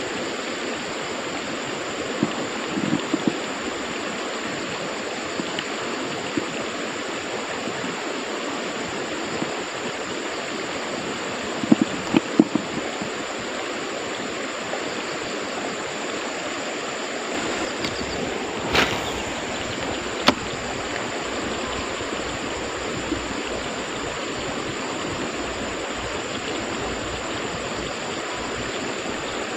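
Steady rush of flowing stream water, with a few brief clicks and knocks scattered through it, the sharpest about two-thirds of the way in.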